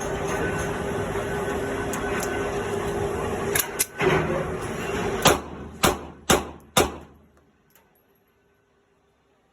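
A steady rumbling background, then about six sharp cracks between about three and a half and seven seconds in, the last four roughly half a second apart, after which the sound drops away to near silence.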